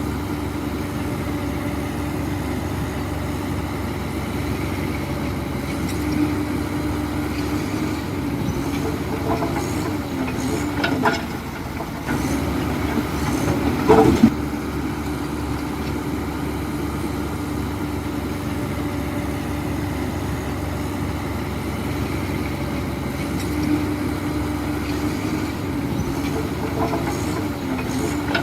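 Heavy diesel engine of a LiuGong crawler bulldozer running steadily, its pitch dipping and swelling every few seconds, with a metallic clatter from the tracks. Two sharp clanks come about midway, the second the loudest.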